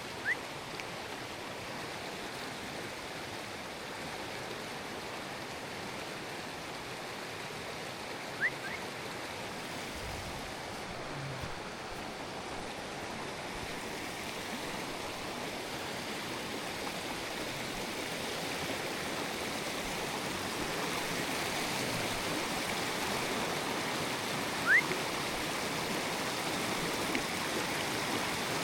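Running water of a stream, a steady rushing noise that grows gradually louder. Three short, high rising chirps stand out over it: one at the start, one about eight seconds in and one near the end.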